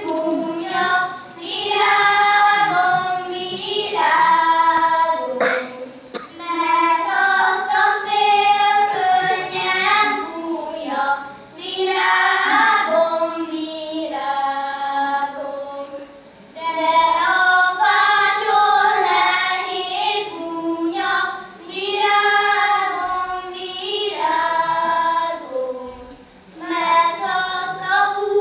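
Children singing in phrases of a few seconds, with short breaks between them.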